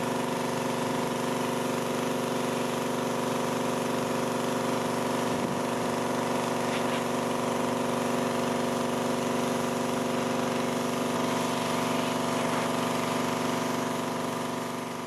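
Homemade pressure washer running steadily: the 212cc petrol engine drives the high-pressure pump, and the water jet hisses against wooden boards. The sound fades out near the end.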